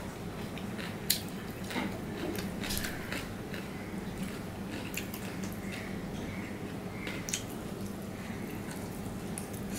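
Close-up wet mouth and finger sounds of hand-eating: fingers wiping leftover curry off a stainless steel plate and being licked and sucked clean, with lip smacks and a few sharp clicks, the loudest about a second in. A low steady hum runs underneath.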